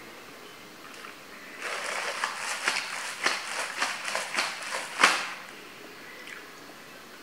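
Wrapper crinkling in the hand: a dense run of crackles lasting about three and a half seconds, with the loudest crackle just before it stops.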